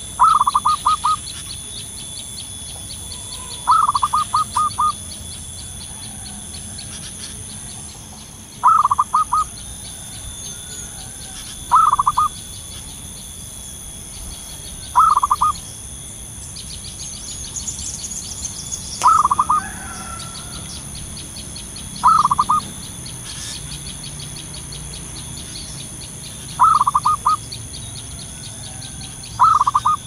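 Zebra dove calling: a short burst of quick, stuttering coos, repeated about every three seconds, nine times. Behind it runs a fast, high-pitched ticking.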